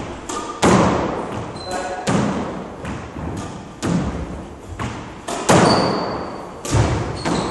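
Squash rally: the ball cracks off racquets, walls and floor about eight times, each hit followed by a ringing echo in the enclosed court.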